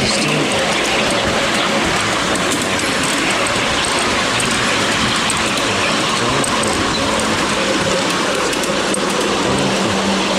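Miniature railway train with a Class 73 model locomotive running steadily along the track, heard from on board: a continuous rumble of wheels on rail with a faint steady low hum underneath.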